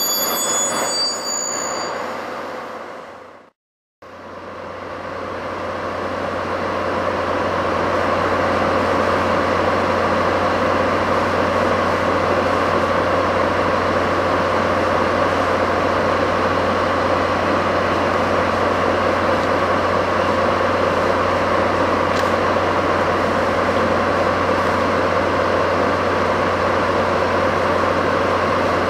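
DD51 diesel-hydraulic locomotive idling at a standstill: a steady engine drone over a low hum. About three and a half seconds in, the sound of the moving train fades out into a brief break, and the idling fades up after it.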